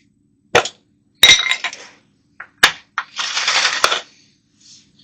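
Several sharp clicks and a clattering knock, with a short hissing rattle about three seconds in, over a faint steady hum.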